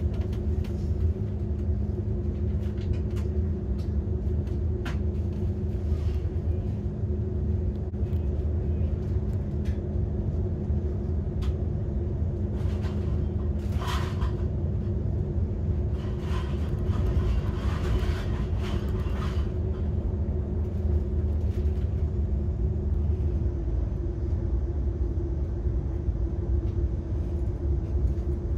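Steady low rumble of a railjet passenger coach running at speed, heard from inside the coach, with a steady two-pitch hum and occasional light clicks. There is a brief brighter rattle about halfway through. The lower hum fades out near the end.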